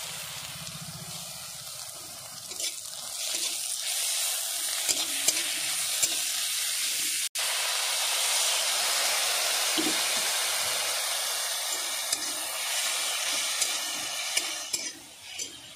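Sliced onions frying in hot mustard oil in an aluminium wok, sizzling steadily while a steel spatula scrapes and taps the pan. After a brief cut about seven seconds in, ginger-garlic paste poured into the hot oil makes the sizzle louder.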